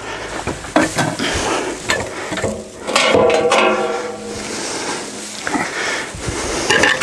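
Irregular metal scraping, rattling and clinking as a folding attic ladder's metal frame, hung on threaded rods, is pulled up and adjusted in the ceiling opening by hand, with a louder scrape about three seconds in.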